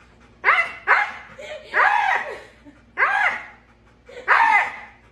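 Siberian husky screaming in a human-like way: five calls, two short ones and then longer ones that arch up and down in pitch. It is a scared dog's protest at being led out of the grooming tub.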